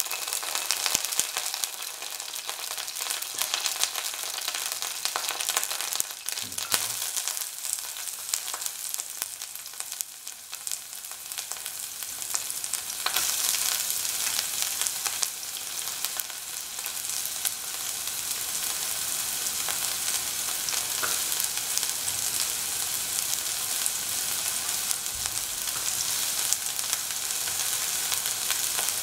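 Hot oil sizzling and crackling in a frying pan as dried Kashmiri chillies fry. About halfway through, chopped shallots go into the pan, and the sizzle becomes louder and fuller.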